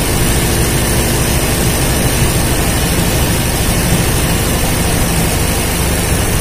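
Sewing machine running at speed for free-motion embroidery, the needle stitching fill into hooped fabric: a loud, steady mechanical whir with a fast low rumble.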